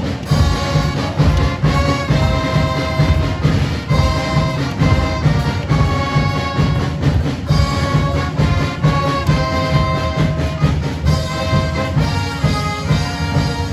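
Music with brass instruments playing held notes over a steady low beat.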